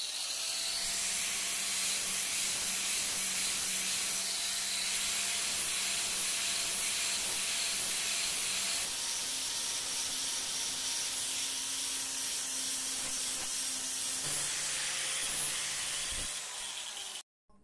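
Angle grinder's disc grinding the tip of a steel chisel: a steady, loud hiss of abrasion with the motor's hum beneath it. The hum jumps in pitch twice, and the sound cuts off abruptly near the end.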